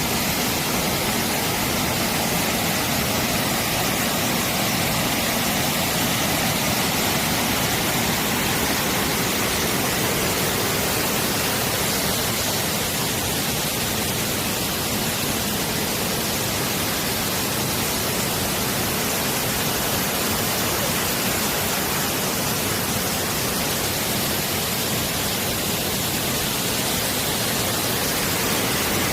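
Mountain valley stream rushing steadily, a constant full hiss of running water with no breaks.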